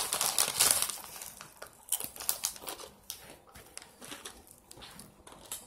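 Large plastic Doritos Dinamita chip bag crinkling as it is handled and chips are taken out, loudest in the first second, then quieter scattered crackles and clicks.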